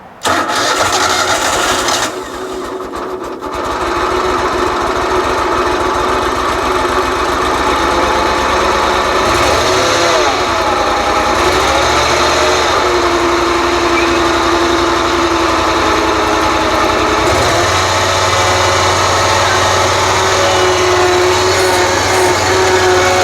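Riding lawn mower engine started and running steadily, with its speed wavering up and down for a few seconds partway through.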